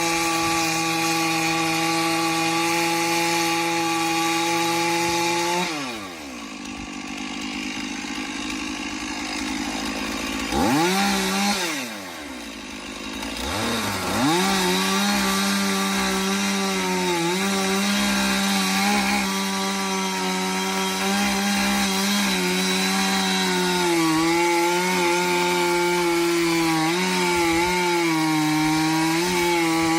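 Chainsaw running at full throttle cutting through wood. About five and a half seconds in it drops to idle and revs briefly near eleven seconds. About fourteen seconds in it goes back to full throttle, its pitch dipping and wavering as the chain loads up in the cut.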